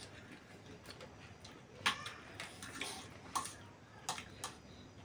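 Eating sounds at a meal table: a handful of short, sharp clicks and smacks, about six of them, starting about two seconds in, from chewing and cutlery on plates.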